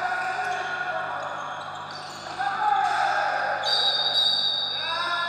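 Indoor handball game sound: the ball bouncing on the court floor under players' shouts. It grows louder about two and a half seconds in, around a shot on goal.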